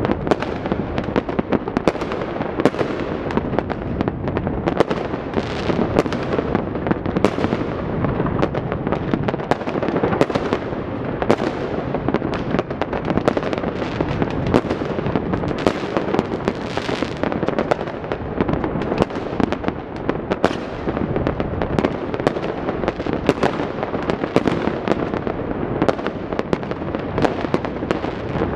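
Many fireworks and firecrackers going off across a city at once: a dense, unbroken run of bangs and crackles with no pauses.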